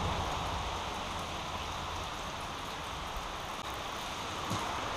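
Steady hiss of rain falling around the creek, with a faint tick near the end.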